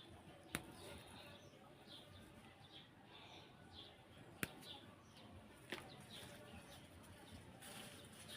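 Faint bird chirping, many short chirps one after another, with three sharp clicks or knocks: one about half a second in and two more a little past the middle.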